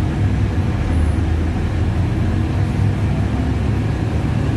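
Steady low rumble heard from inside a moving city transit vehicle, with an even hiss of travel noise over it.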